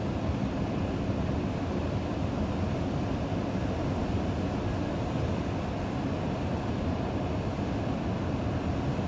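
Steady low roar of Pacific surf breaking along a wide sandy beach, even throughout with no single wave standing out.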